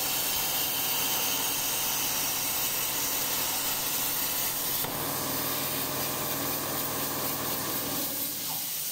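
Plasma torch of a CNC plasma pipe-cutting machine cutting a metal pipe: a steady loud hiss over a low hum. Near the end the arc shuts off. The low hum drops away and the hiss goes on.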